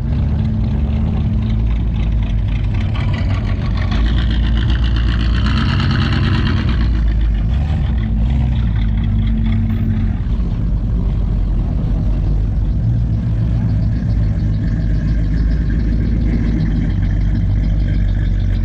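Car engines running slowly and steadily, a deep low-pitched drone, with a brighter, higher-pitched engine sound rising over it between about four and seven seconds in.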